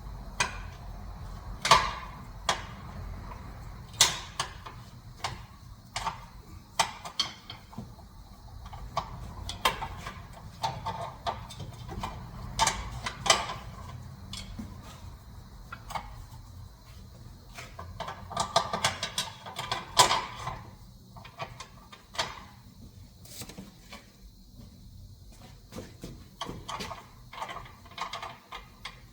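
Hand tools working on metal: irregular sharp clicks and clanks, with runs of quick ratchet-like clicking, over a low steady hum.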